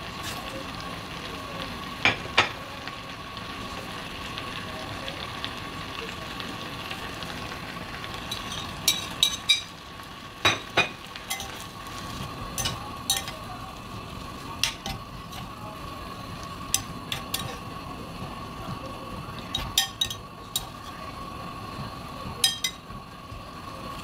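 Kimchi sizzling in a glass saucepan over a gas flame, with a spoon clinking sharply against the glass every few seconds as it is stirred, often two or three clinks together.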